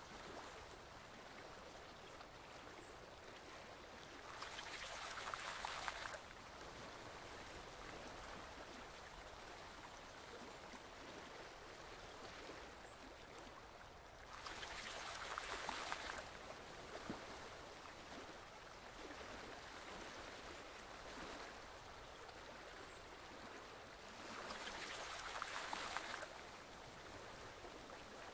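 Stream water flowing steadily, swelling into a louder rush for about two seconds roughly every ten seconds.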